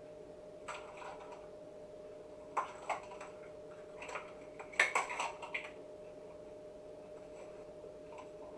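Scattered light knocks and clicks of kitchen containers and lids being handled on a countertop, the loudest cluster about five seconds in, over a steady faint hum.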